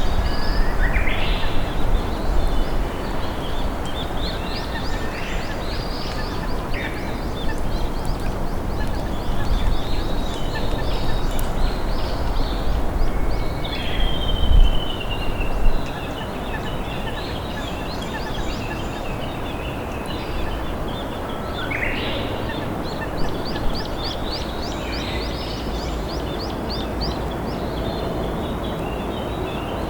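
Steady rush of a slowly flowing river with wild songbirds singing over it. Whistled phrases rise about a second in and again a little past twenty seconds, a long falling whistle comes around fourteen seconds, and a quick run of high ticking notes follows near the end.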